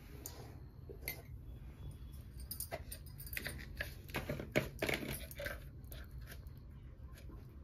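Scattered light clicks and clinks of kitchen utensils being handled, thickest in the middle, with a sharper knock about four and a half seconds in, over a steady low hum.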